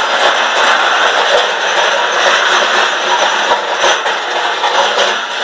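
Tractor-towed seed drill running over rough ground: a loud, steady mechanical rattle and clatter of the steel frame and tines, mixed with the tractor's running noise.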